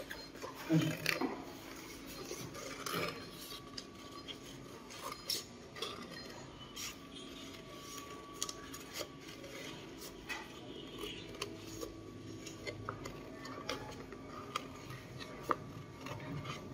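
Scissors cutting paper: irregular snips with light metallic clicks of the blades, scattered all through.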